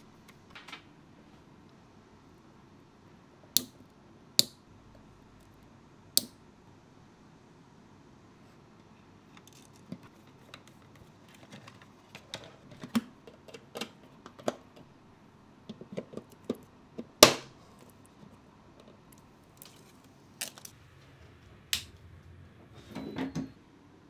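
Scattered sharp clicks and taps of hard plastic and metal as a plastic wall switch is wired and handled, with a screwdriver at its terminal screws. Small clicks come thicker in the second half, with one loud click partway through and a short rattle near the end.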